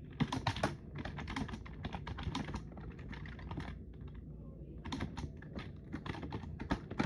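Typing on a computer keyboard: quick runs of key clicks, with a brief pause a little past halfway before the typing resumes.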